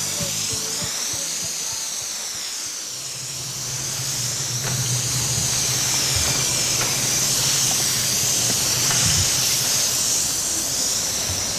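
A steady hiss whose upper part sweeps slowly up and down, with a low hum coming in about three seconds in and dropping out near nine seconds; a rock track is just ending at the start.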